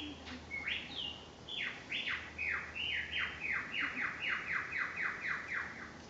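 Superb lyrebird singing: a few whistled notes, then a fast run of about a dozen descending sweeps that speeds up.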